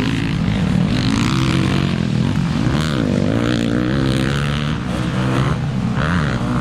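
Several motocross dirt bikes racing past on a muddy track, their engines revving up and down over one another as the riders open and close the throttle and shift.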